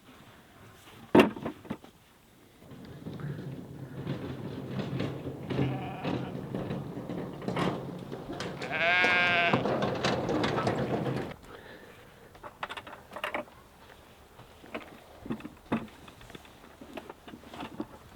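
A sheep bleats once, a long wavering bleat about nine seconds in, over a rustling, shuffling din from the flock being fed windfall apples. A sharp knock sounds about a second in.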